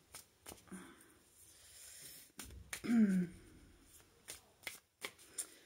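Osho Zen tarot cards being handled and shuffled: scattered light clicks and taps. A brief falling vocal hum about three seconds in is the loudest moment.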